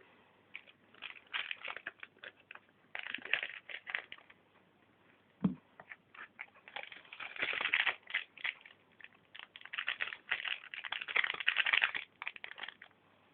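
Foil Yu-Gi-Oh booster-pack wrappers crinkling and rustling in irregular bursts as packs are cut open and the cards handled, with a single soft knock about five and a half seconds in.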